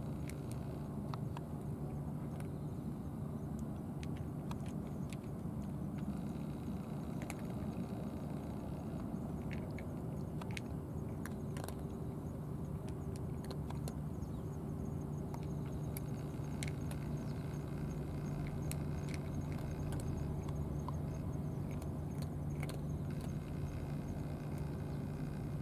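A cat eating from a plastic dish, heard as faint, irregular small clicks. Under it runs a steady low rumble like distant road traffic.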